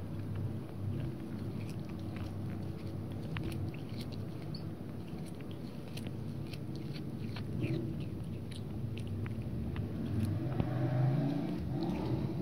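Domestic cat biting and chewing fresh cat grass: irregular small crisp clicks as blades are bitten off and chewed. A steady low hum runs underneath.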